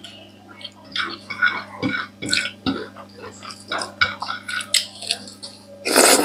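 Close-up eating sounds of people eating rice and curry with their hands: wet chewing, lip smacks and short irregular clicks. A louder noisy rush comes about six seconds in, over a steady low hum.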